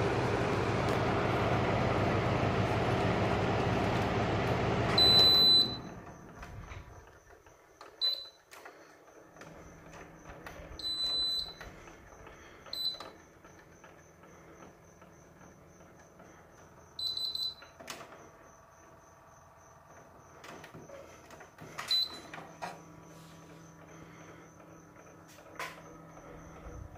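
Sharp AH-AP9HHY air-conditioner indoor unit's fan running with a steady hum, then cut off right after a short high beep about five seconds in and spinning down. Several more short single beeps from the unit follow over the next fifteen seconds.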